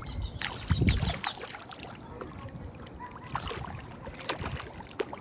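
Water sloshing and splashing, with scattered sharp knocks and a loud low thump about a second in.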